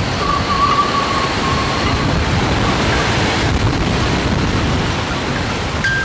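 Strong wind gusting steadily across the harbour, buffeting the microphone with a low rumble. A few faint short, high ringing tones sound now and then above it, in the first couple of seconds and again near the end.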